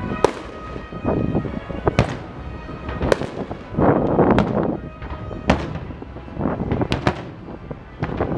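Aerial fireworks shells bursting: sharp bangs every second or two, with a dense stretch of crackling about four seconds in.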